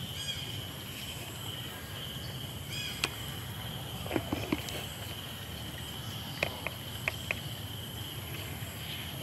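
Outdoor forest ambience: a steady high insect drone, with a couple of short bird chirps near the start and a scattering of soft clicks and taps in the middle.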